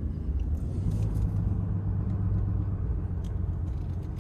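Truck driving on the road, heard from inside the cab: a steady low rumble of engine and tyres.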